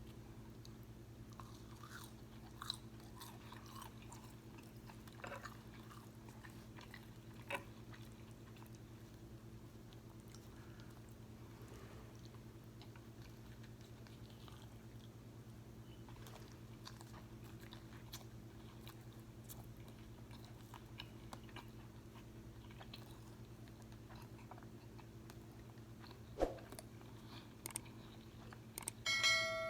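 Close-miked chewing of crispy fried food, faint wet mouth sounds with scattered soft clicks and smacks, over a steady low electrical hum. A short steady tone sounds near the end.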